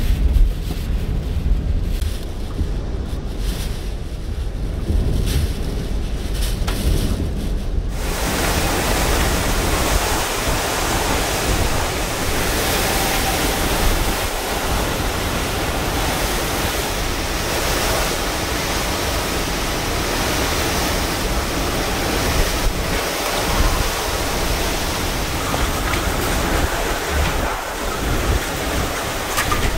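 Hurricane wind buffeting the microphone with a low rumble. About eight seconds in it changes suddenly to a steady, hissing rush of wind and driving rain.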